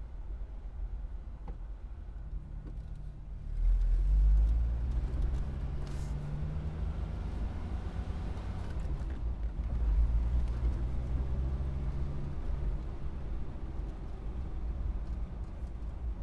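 Car engine idling with a low rumble, then pulling away with the engine pitch rising about four seconds in, and a second surge of acceleration around ten seconds in.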